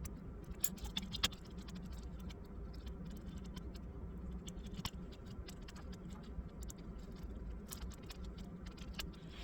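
Light clicks and taps of laptop parts and tools being handled, coming irregularly over a steady low hum.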